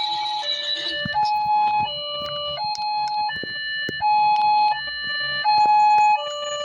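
Small electronic two-tone siren sounding, switching back and forth between a high note and a lower note about every two-thirds of a second, with scattered sharp clicks over it.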